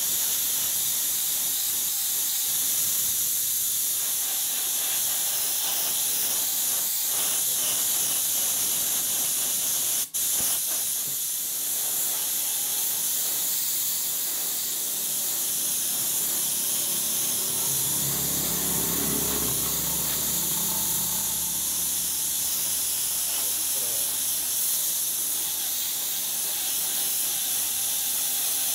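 Compressed-air paint spray gun hissing steadily as red paint is sprayed onto a pipe wrench. The hiss cuts out for a moment about ten seconds in, when the trigger is released, then resumes.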